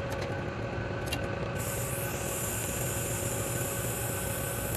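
TIG welding torch at a stainless steel pipe joint, giving a steady high hiss that starts about a second and a half in, over a steady low shop hum.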